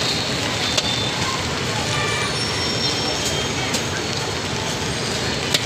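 Busy street din: steady traffic and crowd noise with indistinct background voices and a few sharp clicks.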